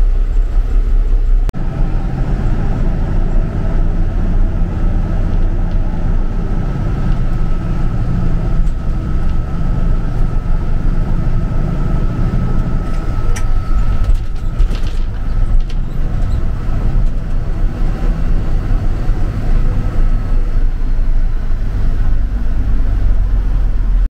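Freightliner cab-over semi truck's diesel engine running steadily as it drives, heard from inside the cab, with a faint steady whine above the low rumble.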